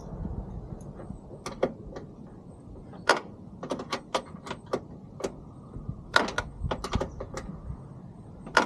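A spanner clicking and tapping on a car door's hinge bolts as they are worked: a string of sharp, irregular metallic clicks, the loudest about three seconds in, about six seconds in and near the end.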